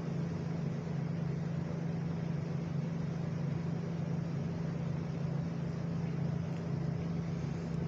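A steady low hum with a constant hiss underneath, unchanging throughout, with no distinct events.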